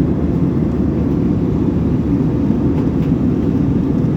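Steady low rumble of an Airbus A320-214 in flight, heard from inside the passenger cabin: engine and airflow noise with no change in level.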